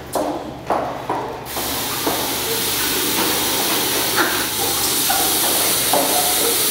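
A few sharp bangs in the first second and a half, then a tap running steadily into a washbasin, a loud even hiss of splashing water.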